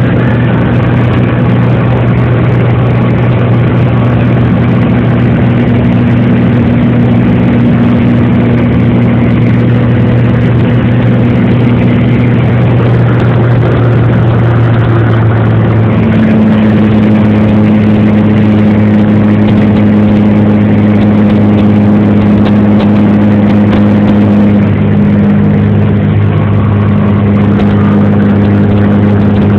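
Airplane engine drone inside the cabin: a loud, steady hum with a noise wash over it. The engine note shifts slightly lower about halfway through.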